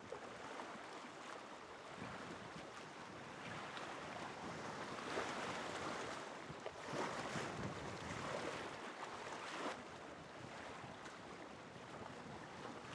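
A steady rushing noise that swells and eases in surges, starting suddenly and cutting off suddenly.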